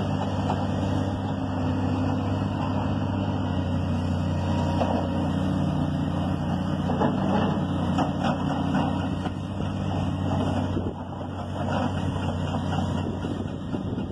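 Diesel engines of heavy quarry machinery (excavators, a bulldozer and a mobile rock crusher) running steadily, with a few short knocks. The engine note dips briefly about eleven seconds in.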